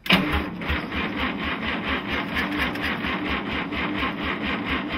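Starter motor cranking the 1951 Studebaker Champion's flathead six-cylinder engine on its first start after a rebuild. It makes a steady, evenly pulsing churn of compression strokes that begins abruptly, and the engine does not fire.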